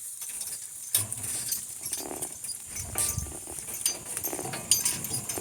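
A team of two donkeys hauling a wagon up a steep bank out of a creek bed. The sound is a mix of hooves and scattered sharp knocks from the wagon, a low rumble, and rattling harness; it starts about a second in.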